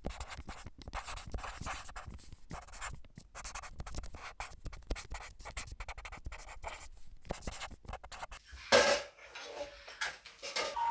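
Hair being brushed and styled: quick, irregular scratchy rubbing strokes, with one louder bump about nine seconds in.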